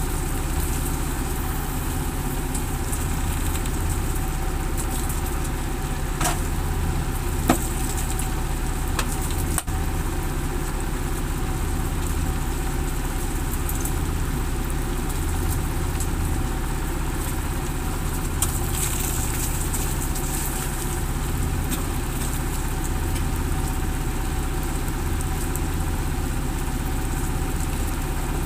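A boat's engine running steadily on board, with rain falling. A few brief clicks come between about six and ten seconds in.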